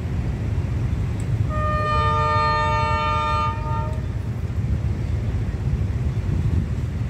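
A D19E diesel-electric locomotive's horn sounds one long chord of several notes, about two and a half seconds long and starting a second and a half in, over a steady low rumble.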